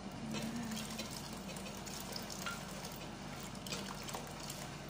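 Spice paste sizzling in a pot on a gas burner while a little watery blended paste is poured in from a blender jar, with a few light clicks.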